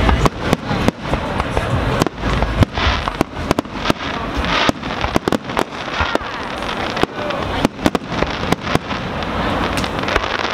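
Aerial firework shells bursting, a rapid irregular series of bangs and crackles with a deep rumble near the start.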